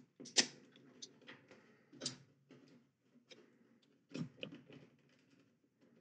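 Faint plastic clicks, creaks and scrapes as the white plastic case of a Flipper Zero is prised apart from its circuit board by hand and with a plastic pry tool, with sharper clicks about half a second, two seconds and four seconds in.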